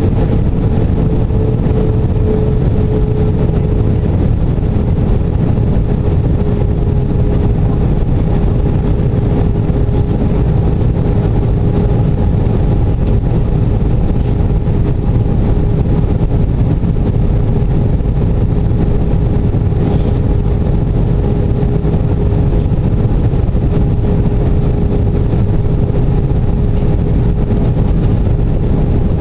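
Steady cabin noise inside a JetBlue Airbus A320 on approach, heard from a window seat: a loud low rumble of its IAE V2500 turbofan engines and the airflow over the fuselage. A steady droning tone runs through it.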